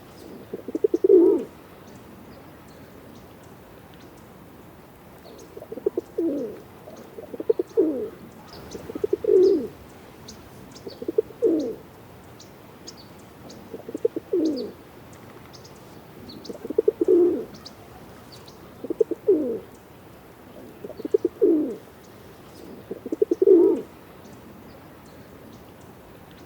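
Pigeon cooing: about ten coos, each about a second long with a stuttering start and a falling pitch, spaced one to three seconds apart after a longer pause following the first. Faint high chirps sound in the background throughout.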